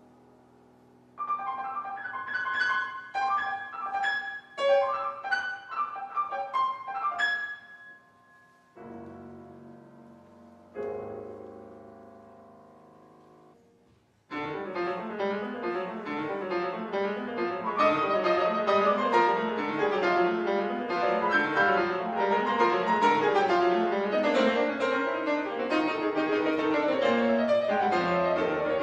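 Grand piano played solo: a short passage of separate high notes and chords that ring out and fade away, then about fourteen seconds in a new piece starts with fast, continuous playing across the keyboard.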